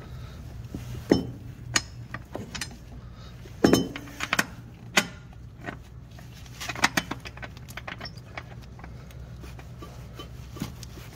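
Scattered metallic clinks and knocks of a steel pry bar levering the rear shock absorber's mount into line, in small clusters at irregular intervals, over a steady low hum.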